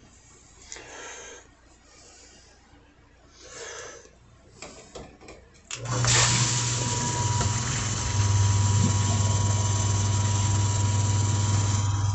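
A few faint rustles and clicks, then about six seconds in a sump pump's electric motor switches on and runs with a steady low hum and a loud rush of water. About two seconds after starting, the hum drops slightly in pitch and then holds steady.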